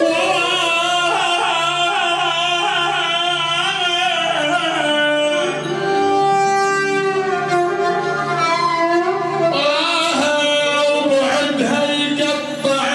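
Iraqi Arabic song: a man singing long, wavering held notes over instrumental accompaniment.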